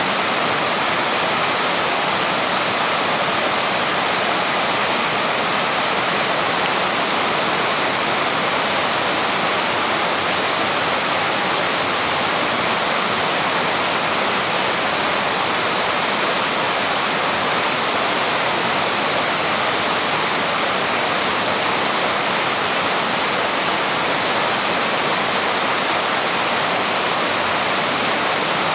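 Waterfall rushing steadily: a constant, unbroken roar of falling water.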